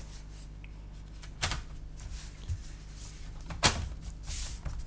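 MacBook Pro's aluminium bottom case being set back in place by hand: quiet handling with a few light knocks and clicks, the sharpest about three and a half seconds in.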